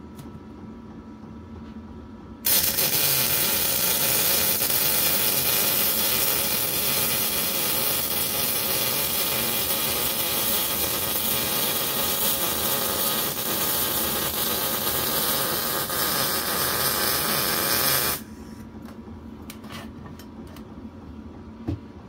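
Electric arc welding with a small HZXVOGEN welder running on 110 volts: one continuous bead, a steady harsh hiss that starts suddenly about two and a half seconds in, holds for about sixteen seconds, and cuts off abruptly.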